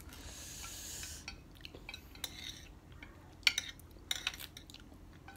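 Noodles being slurped for about a second, then chopsticks clicking against ceramic bowls several times.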